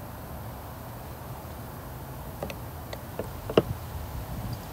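Kitchen knife cutting raw chicken off the bone and tapping on a wooden chopping block: a few sharp taps in the second half, the loudest about three and a half seconds in, over a steady low hum.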